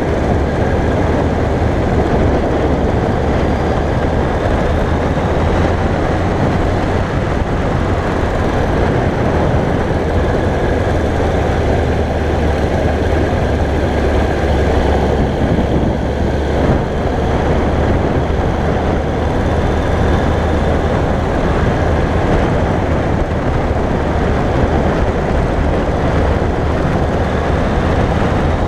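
2001 Yamaha YZF-R1's inline-four engine running steadily while the bike cruises at moderate speed, mixed with a steady rush of wind on the microphone. The pitch stays even throughout, with no hard revving or gear changes standing out.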